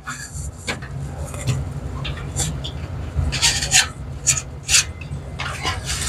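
Several short rubbing and scraping noises, bunched together from about the middle onward, over a steady low hum.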